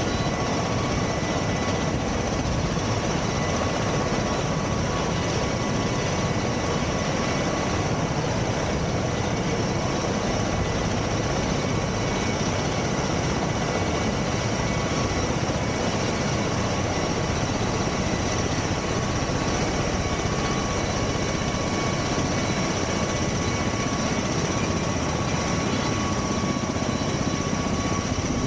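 V-22 Osprey tiltrotor's turboshaft engines running steadily on the ground: a constant roar with a high, steady turbine whine.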